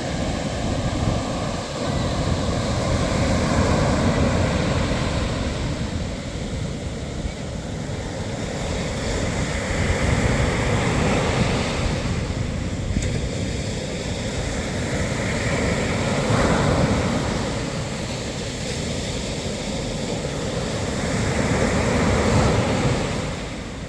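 Sea waves breaking and washing on the shore, the surf swelling and falling back in slow surges about every six seconds.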